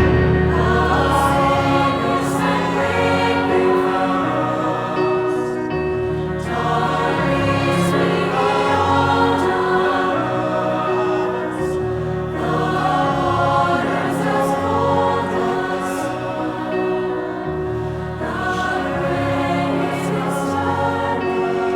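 A youth choir singing sustained chords with instrumental accompaniment, over a deep bass line that changes note about every two seconds.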